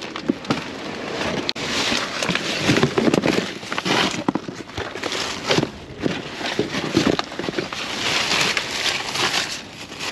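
Trash being rummaged through by hand: plastic bags and cardboard boxes rustling and crackling, with many sharp crinkles and knocks.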